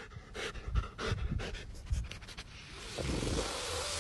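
Dog panting and sniffing with its nose pushed into a hole it is digging in soil. Short irregular scratchy noises run through the first half, and a steadier rushing breath takes over near the end.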